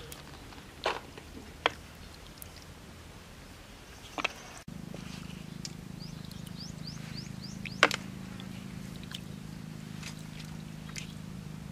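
Occasional sharp clicks of snail shells knocking together as they are picked by hand from wet mud. A steady low hum comes in about halfway through, and a quick run of short high chirps follows soon after.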